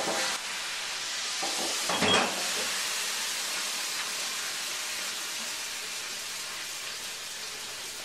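Steady hissing noise with a brief louder swell about two seconds in.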